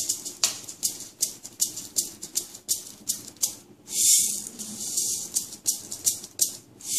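Dry fenugreek seeds rattling in a small plastic bottle as a metal spoon scoops them out: repeated sharp rattles, about two or three a second, with a longer shaking rattle about four seconds in.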